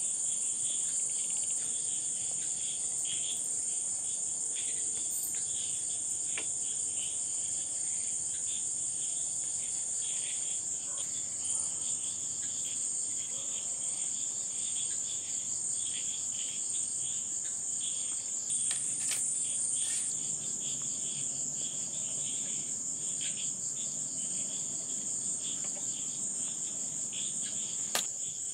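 Crickets chirping in a steady, high-pitched trill, with a second, pulsing insect chirp lower down. A few faint clicks from handling come through.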